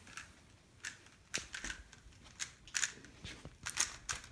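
Plastic speed cube being turned by hand: quick irregular clicking twists of its layers, about two a second.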